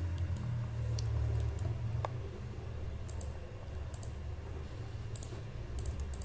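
Scattered short clicks of a computer mouse and keyboard during 3D modelling work, several in quick pairs, over a steady low hum.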